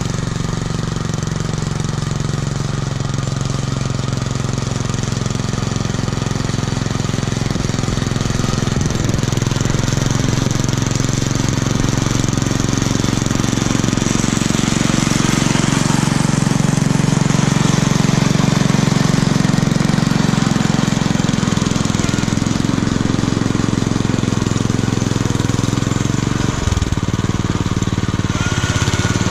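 Homemade garden tractor's engine running steadily under load while plowing snow, its exhaust passing through a homemade muffler. It grows a little louder in the middle, then eases back.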